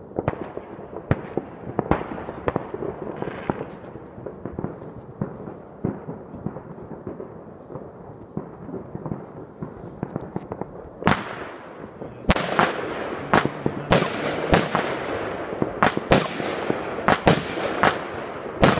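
Fireworks going off: scattered bangs and pops at first, then louder cracks in quick succession from about eleven seconds in, each trailing off.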